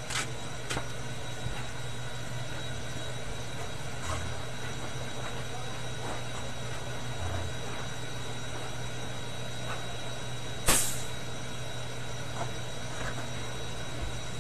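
Electric air compressor running with a steady hum. A single short, loud burst of noise comes about ten and a half seconds in.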